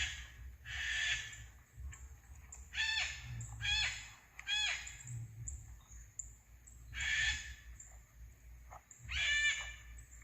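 An animal giving a series of short, harsh calls, about eight in ten seconds, several falling in pitch at the end, over a low rumble.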